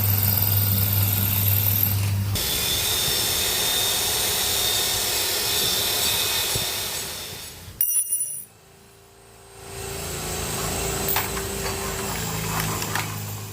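Electric drill running in long stretches while working on a ceiling install. It stops abruptly about eight seconds in, then runs again more quietly about two seconds later.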